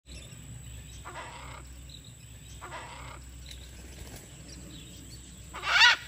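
Macaws squawking: two harsh calls about one and two and a half seconds in, then a louder, higher call just before the end.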